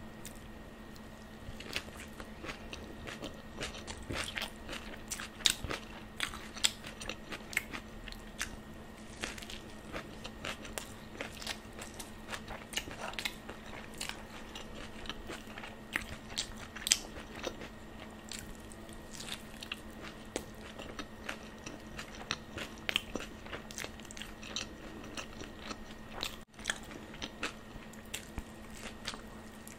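Close-miked eating of a veg roll: bites and chewing, with many short, sharp crunchy clicks and wet mouth sounds coming irregularly throughout.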